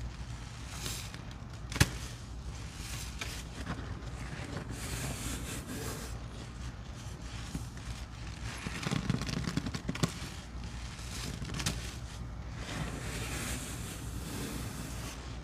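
Sponges loaded with fluffy soap suds being squeezed by hand: wet squishing with a fine crackle of popping foam. There is one sharp click about two seconds in, and a louder squelch around nine to ten seconds.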